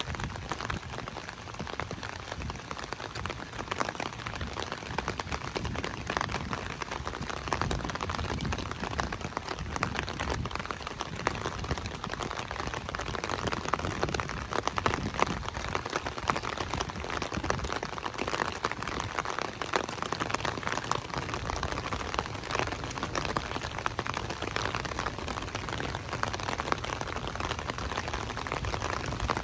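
Light rain falling, a steady dense patter of many small drops hitting close by.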